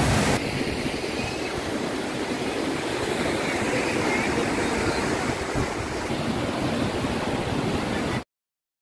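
Steady rush of white water from the Oum Er-Rbia river's rapids and small cascades. It cuts off abruptly near the end.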